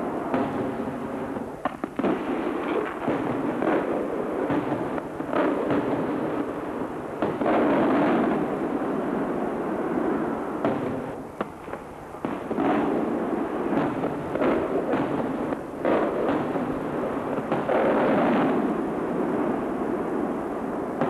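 Aerial firework shells going off in quick succession: a dense run of bangs and crackle, swelling louder about a third of the way in and again near the end.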